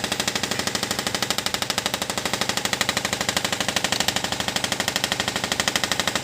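Toyota Fortuner engine running with its serpentine belt drive making a rapid, even chirping tick, about eleven a second: the belt squeak being chased.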